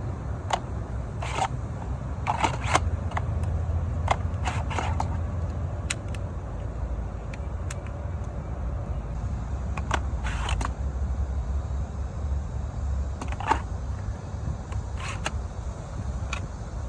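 A steady low rumble with scattered sharp clicks and short rustling handling noises.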